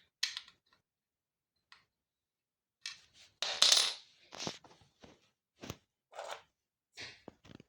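Small metal parts and hand tools clinking and clattering: a scattered series of separate sharp clicks and knocks with short rings, the loudest about three and a half seconds in, while the scooter's fender screws are being fitted.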